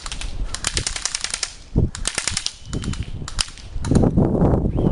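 Airsoft guns firing in rapid bursts of sharp clicking shots, about three bursts. Near the end a loud low rustling noise takes over.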